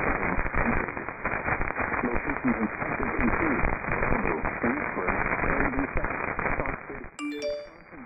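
AM broadcast on 970 kHz heard through a KiwiSDR web radio receiver: faint, barely intelligible speech buried in crackling static. About seven seconds in, the radio dips and a phone's message notification chime sounds, a short rising three-note tone.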